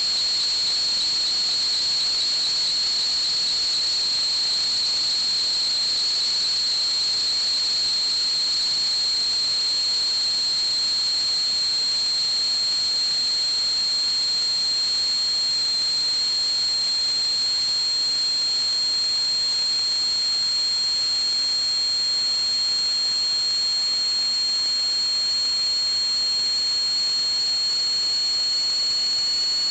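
Steady high-pitched whistle over a hiss, unchanging throughout, with a fainter second tone joining about halfway through and sliding slightly lower.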